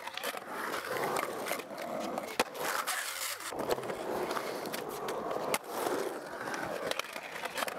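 Skateboard wheels rolling on a smooth concrete bowl as the rider carves through it, with a few sharp clacks from the board, the loudest about two and a half seconds in and another about five and a half seconds in.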